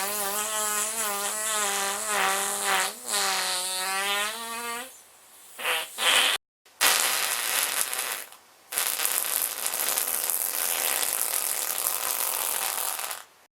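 A run of farts: a long buzzing one of about five seconds with a wavering pitch, a couple of short blasts around six seconds in, then two long airy, hissing ones.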